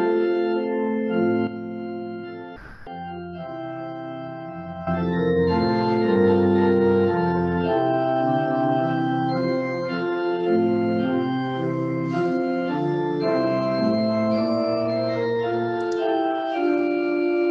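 Church organ playing slow, sustained chords. It is softer for a few seconds near the start, with a brief click in that quieter stretch, then fuller from about five seconds in.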